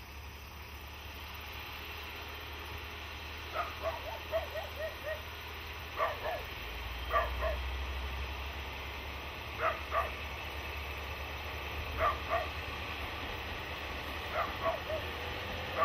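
A dog barking: a quick run of about six barks, then single barks or pairs every couple of seconds, over a low steady rumble.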